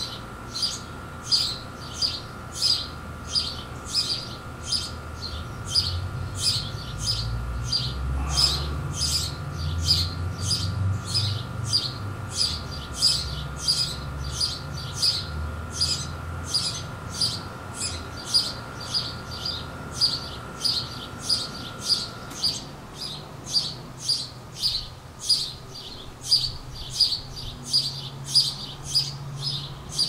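House sparrow chirping over and over, about two evenly spaced chirps a second, with a low rumble underneath about a third of the way through.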